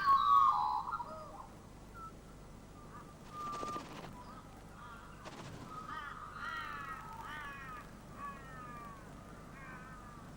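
Harsh, raspy bird calls: loud at the start, then a series of repeated down-slurred calls through the middle and later part, with a few short scratchy noises between them.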